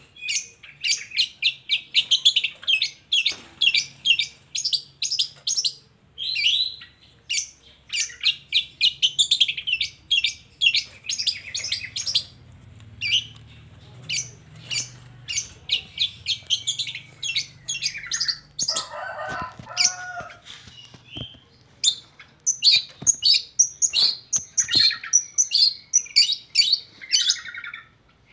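Long-tailed shrike (cendet) singing a lure song: fast runs of sharp, chattering notes with short pauses. About 19 seconds in comes a lower, warbling phrase.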